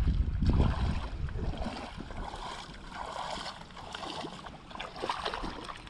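Shallow water sloshing and splashing as a person wades and works a fishing net by hand, with a low rumble that is loudest in the first second.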